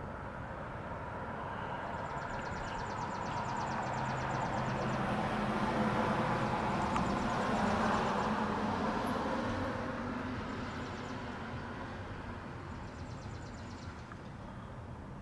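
A vehicle passing by: a low engine-and-tyre rumble that swells to its loudest about halfway through, then fades away.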